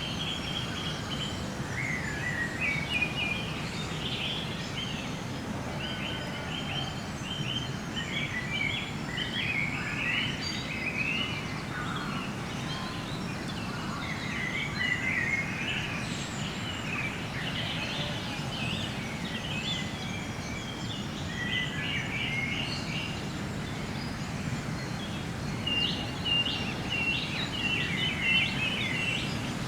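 Woodland birds singing and calling, several overlapping songs of repeated short phrases, over a steady low rumble of wind, as heard in an unattended field recording.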